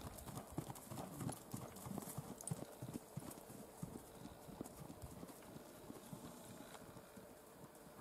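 Hoofbeats of a gaited mare moving at a smooth, even gait over an arena's dirt: a quick run of soft footfalls that grows fainter as the horse moves away.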